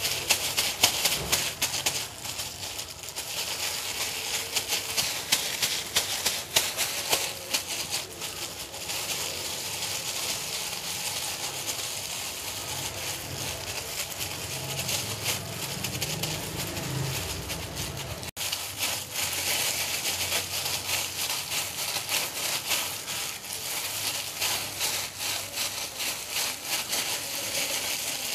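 Thin plastic disposable gloves crinkling and rustling continuously as gloved hands knead a soft shredded chicken and mashed potato mixture and press it into small round patties. The sound breaks off briefly about eighteen seconds in.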